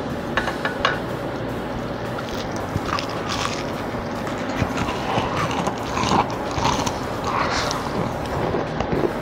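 Close-miked biting and chewing of crunchy breaded fried cauliflower: a few sharp crunches early on the first bite, then clusters of crisp crackling chews, loudest in the second half, over a steady background hum.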